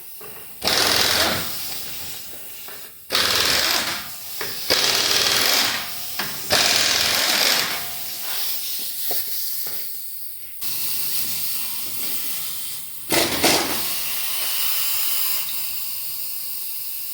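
Pneumatic impact wrench rattling in several bursts of a few seconds each, with sudden starts, as bolts are spun off.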